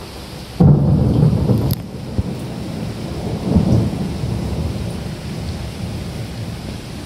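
Steady rain falling, with a sudden low rumble about half a second in that lasts about a second, and a weaker low swell near the middle.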